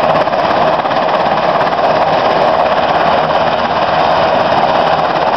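U.S. Coast Guard MH-60 Jayhawk helicopter running on the ground with its main and tail rotors turning, its engines and rotors making a loud, steady noise.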